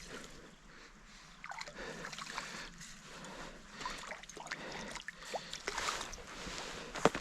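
Water splashing and sloshing in irregular bursts as a small hooked brown trout is played and reeled in from a flowing river, with a sharp click near the end.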